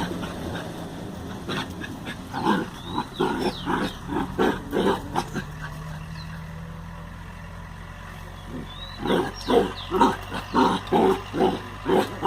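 Dogs playing together, making short rapid vocal sounds about three a second in two bouts, with a few high squeaks. There is a quieter pause of a few seconds midway.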